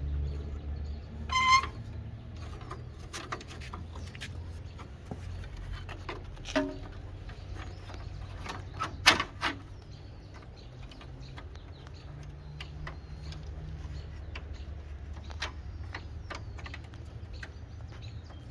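Scattered small clicks and knocks of plastic and metal parts being handled and pressed into place while a Jeep light is fitted, the loudest knock about six and a half seconds in and two more close together about nine seconds in. A short high chirp sounds about a second and a half in, over a steady low hum.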